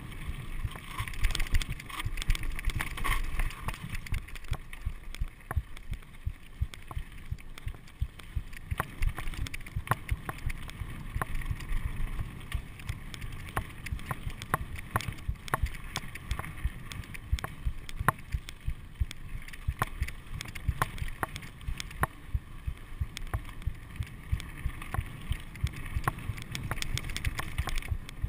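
Mountain bike rolling over a rough, rocky dirt trail: a steady low rumble from the tyres with frequent sharp clicks and knocks as the bike rattles over bumps and stones, plus some wind on the microphone.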